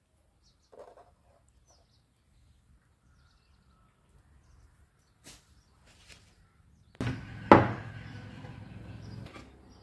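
A few faint, isolated clicks and knocks, then a low hiss that comes in at about seven seconds, with a single sharp thunk half a second later.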